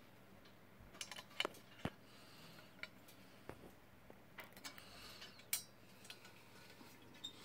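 Faint, irregular metallic clicks and ticks from a hex key working in the socket heads of the steel bolts on a metal swingarm dropout as the bolts are tightened.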